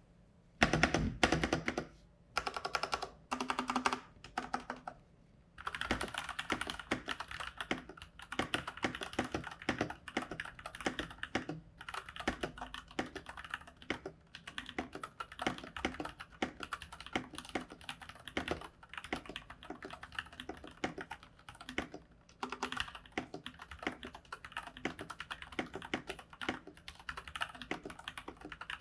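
IQUNIX ZX75 mechanical keyboard with stock Cherry MX Brown tactile switches being typed on steadily, a fast run of key clacks that starts about six seconds in after a few separate sounds, with a brief pause about twenty-two seconds in.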